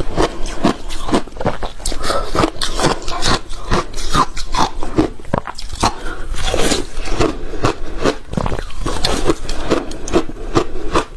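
Ice being bitten and chewed close to the microphone: a dense, continuous run of sharp crunches and crackles as big mouthfuls break up.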